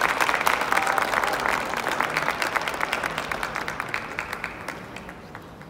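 Audience applause for a point scored in a kendo match: dense clapping that gradually dies away.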